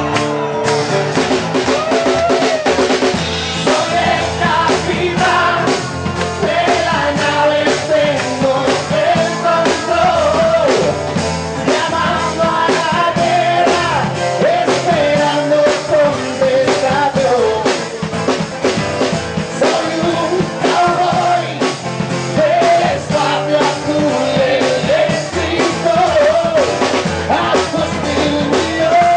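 Live rock band playing: a male singer over strummed guitars and a drum kit keeping a steady beat.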